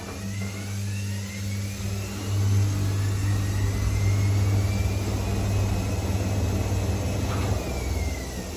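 Gorenje Sudslock washing machine motor starting up with a strong hum and a whine that rises in pitch as it speeds up. About seven seconds in there is a click and the whine falls as it slows. The owner calls the motor bad.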